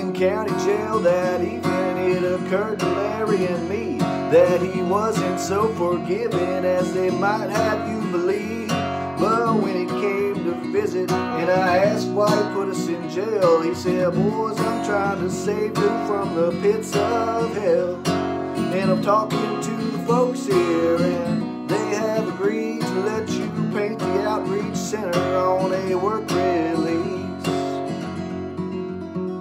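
Steel-string acoustic guitar playing an instrumental break: a picked melody over strummed chords, growing a little quieter near the end.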